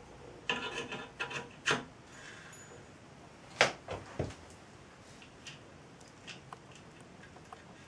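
Metal gears being fitted onto a spindle on a model traction engine's painted frame: about a second of scraping and rubbing, then a sharp click about three and a half seconds in and two lighter knocks, followed by faint ticks as the gear is pressed home.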